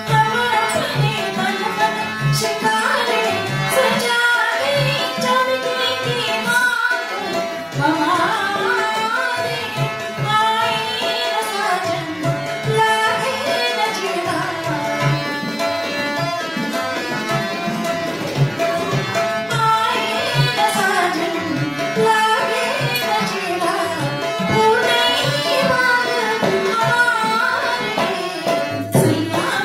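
Tabla and sarangi music: the tabla keeps a steady beat under a sliding, ornamented sarangi melody.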